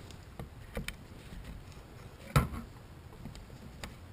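A few scattered short clicks and knocks, with one louder sharp knock a little past halfway.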